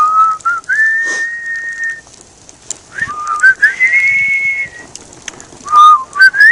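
Whistling: a single clear tone that holds several notes, stepping and sliding between them, with faint crackles underneath.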